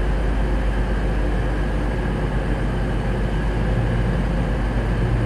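Underfloor diesel engines of a Voyager-type diesel multiple unit running with a steady low hum, growing a little stronger about four seconds in.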